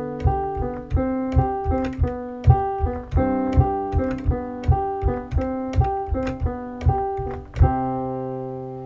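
Piano-voiced keyboard playing a steady repeating broken-chord pattern in the right hand over held left-hand bass notes, one per bar, then ending on a held chord about three quarters of the way through that slowly fades.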